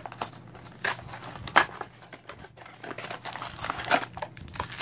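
A foil trading-card pack wrapper crinkling and tearing as it is ripped open by hand: a run of sharp, irregular crackles.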